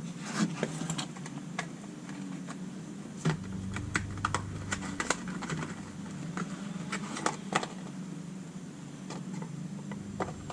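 Irregular light clicks and taps of a hand tool and an oil filter being handled during an oil filter change, over a steady low hum.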